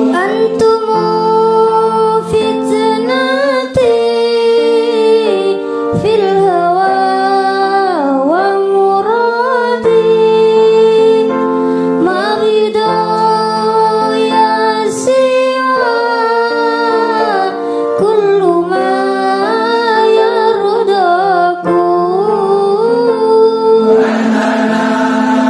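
A solo voice sings an Arabic sholawat (Islamic devotional song) with sliding, ornamented melodic lines over a sustained instrumental backing.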